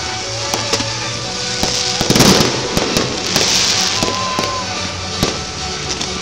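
Fireworks going off: a string of sharp bangs, with a louder, denser burst about two seconds in and another just after three seconds, over background music.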